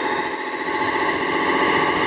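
Scale RC Jeep Wrangler JK crawler running as it drives through sand: a steady mechanical whine made of several tones over a fast buzzing pulse.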